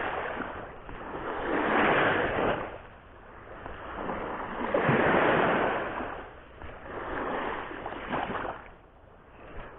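Sea waves washing onto the shore, coming as three swells of rushing noise a few seconds apart, the last one weaker.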